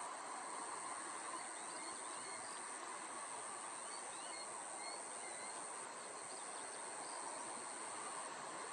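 Steady high-pitched drone of evening insects over an even background rush, with a few faint short high chirps in the middle.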